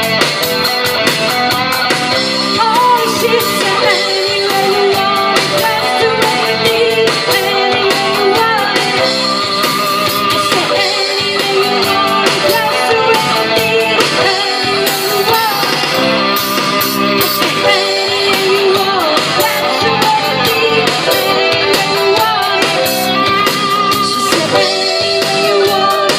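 Live rock band playing an instrumental passage with an electric guitar lead and bending notes over steady backing.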